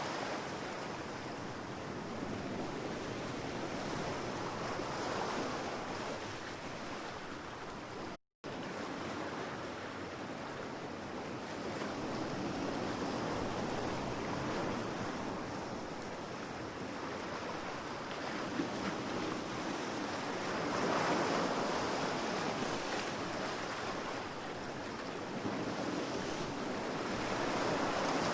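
Ocean waves washing onto a beach: a continuous surf wash that swells and recedes every few seconds, broken by a brief dropout to silence about eight seconds in.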